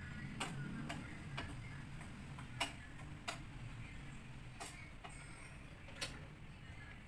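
Light, irregular clicks and taps of a utensil against a cooking pot, about eight spread over several seconds, over a low steady hum.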